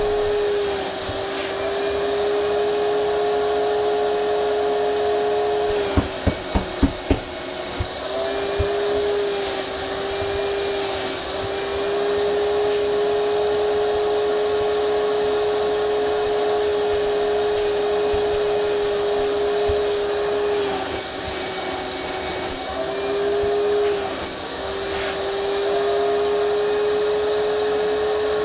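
Vacuum cleaner running steadily while van seats are vacuumed, a constant motor whine whose pitch dips briefly several times. About six seconds in, a quick run of about five sharp knocks sounds over it.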